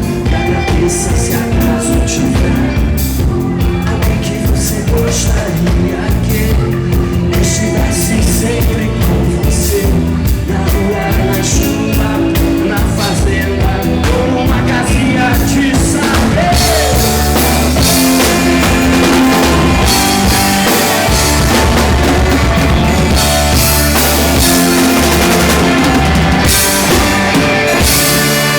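A live rock band playing, with a drum kit keeping a steady beat under guitar.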